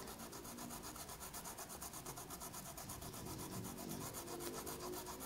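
Paintbrush rubbing quickly back and forth on cloth, blending a light pink over a coral petal: a faint, even, rapid scratchy rubbing.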